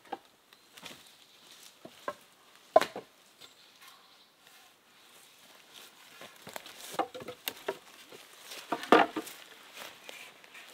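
Wooden poles knocking and clattering against each other as they are pulled from a leaning pile, with footsteps and rustling in forest leaf litter. A sharp knock comes about three seconds in and a louder clatter near the end.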